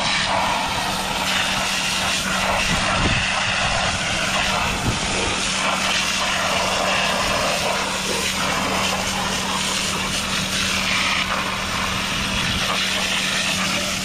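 Pressure washer jet spraying onto mud-caked rubber tracks and the undercarriage of a compact track loader: a steady spray hiss over a constant engine drone.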